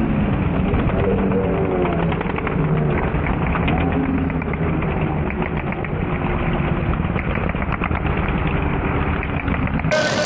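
Racing lawn mower engines running hard, their pitch wavering up and down with the throttle. The sound is dull and muffled. Just before the end it cuts to a clearer recording.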